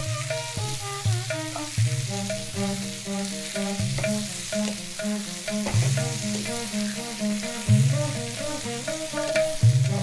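Bitter gourd slices and onions sizzling in hot oil in a wok, stirred with a wooden spatula that knocks and scrapes against the pan now and then, over instrumental background music.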